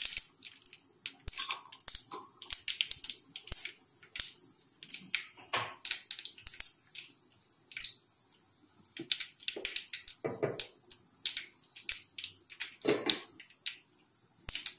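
Mustard and fenugreek seeds popping and spluttering in hot coconut oil in a metal kadai: irregular sharp pops and crackles, with a few fuller spluttering bursts around the middle and near the end.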